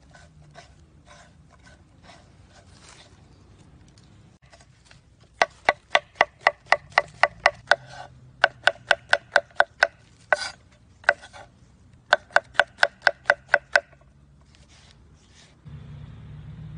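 Kitchen knife slicing mushrooms on a wooden cutting board: quick runs of sharp knocks on the board, about five a second, in three bursts with short pauses between, after a few fainter, slower knocks at the start.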